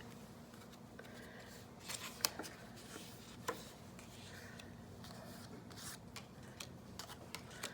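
Paper flash cards being handled: faint rustling and scraping with scattered small clicks, the sharpest a little over two seconds in.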